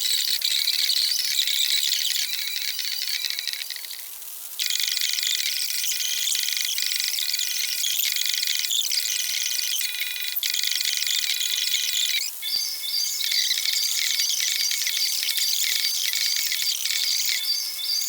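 Night insects, crickets or katydids, chirring steadily in a dense high-pitched chorus, dropping away briefly about four seconds in and changing rhythm about twelve seconds in, over a faint steady hum.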